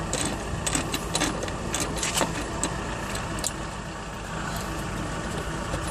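Metal tools clinking and clicking against the brake caliper nut as it is worked loose, a string of sharp irregular clicks that thin out after about three seconds, over a steady low rumble.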